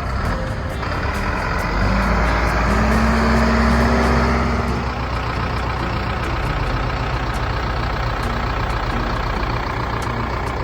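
Bull backhoe loader's diesel engine running steadily. It grows louder for a couple of seconds about two seconds in, then settles back to an even run.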